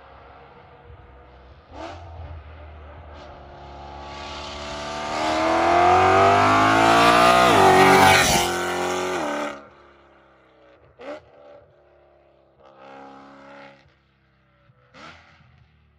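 BMW E92 M3's V8 through a straight-piped Armytrix valvetronic exhaust, approaching hard with its pitch climbing, then passing close with a sharp drop in pitch about eight seconds in. The sound then cuts off abruptly, and the car is heard faintly in the distance with a few short, sharp bursts of exhaust.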